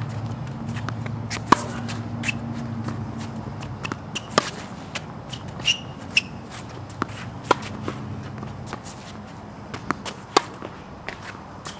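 Sneakers shuffling and stepping on a hard tennis court, with a few short squeaks, mixed with irregular sharp knocks from the strokes.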